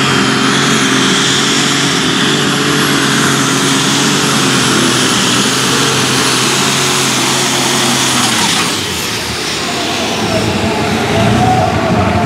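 Case Light Super Stock pulling tractor's turbocharged engine running flat out under load, with a high steady turbo whistle over the engine note. About eight and a half seconds in, the throttle is cut at the end of the pull, and the engine note and whistle fall away to a lower rumble.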